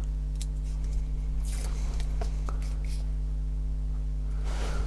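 Steady low hum under faint rustles and a few small clicks: hands handling a strip of sponge tape and a plastic RC car chassis.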